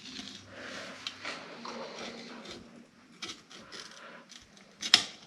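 Faint handling noise of small fork parts being worked by hand: light scraping and scattered soft clicks, with one sharp click shortly before the end.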